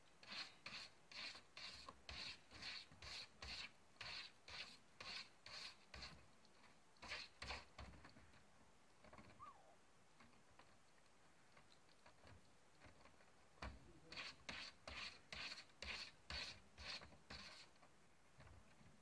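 Calico kitten scratching at its food dish with a paw after eating: soft, even scraping strokes about two a second, in three runs with a pause in the middle.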